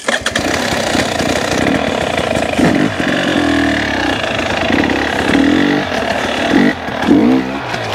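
KTM 300 TPI two-stroke dirt bike engine revving in repeated bursts, the pitch rising and falling several times, as the bike is ridden over logs.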